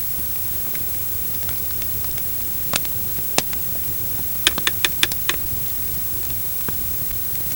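Cooking over a campfire: a steady hiss with a few sharp crackles and pops, coming in a quick cluster of five or six about halfway through.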